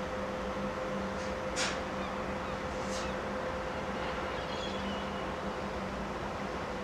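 Steady low machinery hum of the Regal Princess cruise ship over a constant rushing background. A few short, sharp high sounds break in during the first three seconds, the strongest about one and a half seconds in.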